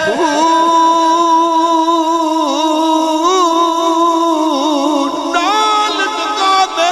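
A man singing Punjabi kalam in a sustained, ornamented style. He holds one long wavering note for about five seconds, then steps up to a higher note near the end.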